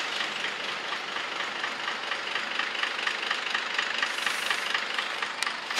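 Bus engine idling with a steady clatter ticking about four times a second, with a short hiss about four seconds in.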